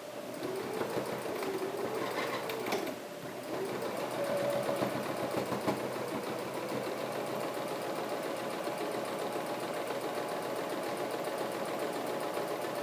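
Electric sewing machine stitching a seam. The motor speeds up and slows down over the first few seconds, dips briefly about three seconds in, then runs steadily and stops near the end.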